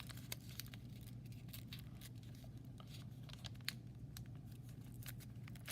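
A sheet of origami paper being folded and creased by hand: scattered short crackles and clicks of paper over a steady low hum.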